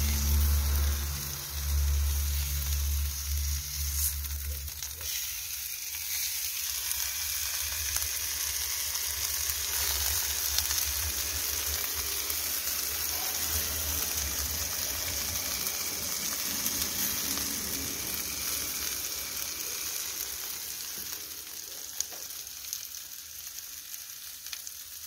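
Chicken and onions sizzling on a marble slab heated over charcoal embers: a steady hiss that eases a little near the end. A low rumble sounds under it for the first five seconds.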